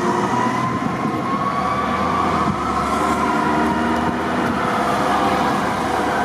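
Fire truck siren wailing, its pitch slowly rising and falling, over the rumble of road traffic.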